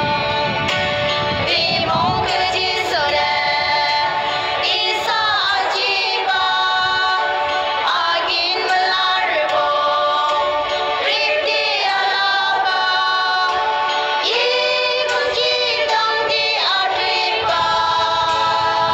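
A song playing: a high voice sings a flowing melody over a musical backing, steady throughout.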